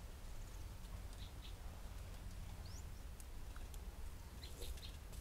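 Faint outdoor background: a steady low hum and hiss, with a few small scattered clicks and a brief high rising chirp.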